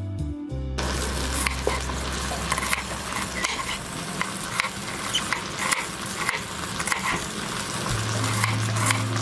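Kitchen knife cutting through a red onion onto a wooden chopping board, crisp strokes about twice a second over a steady hiss. Soft low music notes sit underneath.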